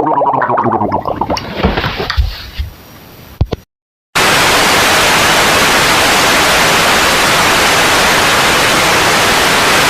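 Loud, steady white-noise static, like a television signal gone to snow, starting about four seconds in after a moment of dead silence and cutting off abruptly at the end. Before it, a person's voice fades out over the first two seconds.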